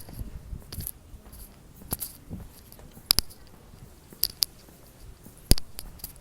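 A series of sharp, short clicks, about one a second with two close together a little past four seconds in, over a faint background hum.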